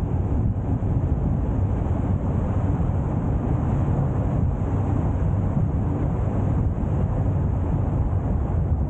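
Steady low rumble of a car driving: road and engine noise that holds even throughout.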